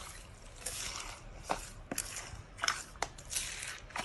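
Slime being squeezed and pressed by hand: a run of wet crackling, popping strokes, about two a second, with a few sharp clicks.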